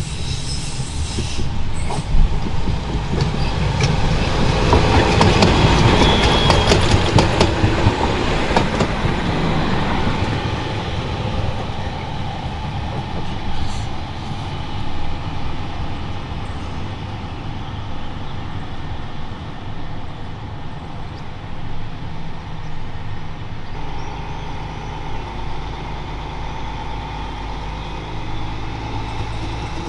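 Vossloh Citylink tram-train running on jointed track. The wheels clatter over the rail joints, loudest a few seconds in with a brief wheel squeal, then the train runs on more steadily as it comes closer, with a low hum setting in near the end.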